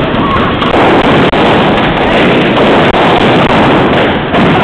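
Crowd stamping on balloons to burst them, many pops running together with crowd noise into a loud, continuous din.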